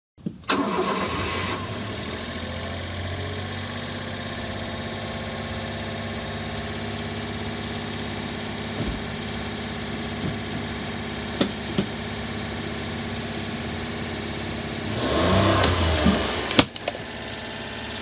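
Honda Acty mini truck's engine idling steadily, a little louder for the first second or two. Near the end it swells briefly, then a sharp click.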